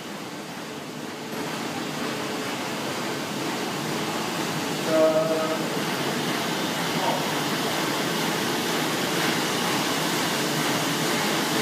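Printing-press machinery running with a steady mechanical rumble, growing louder over the first few seconds as it comes nearer. A short pitched tone sounds once about five seconds in.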